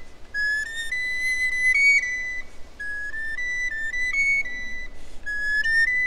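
Solo recorder playing quick phrases of short, very high notes that step up and down, with a brief break between phrases.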